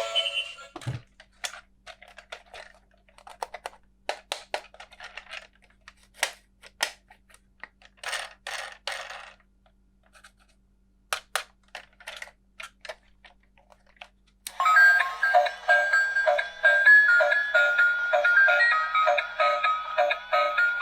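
Scattered sharp clicks and short rustles of plastic toy parts and packaging being handled and snapped. About two-thirds of the way through, a tinny electronic melody starts up with a steady beat.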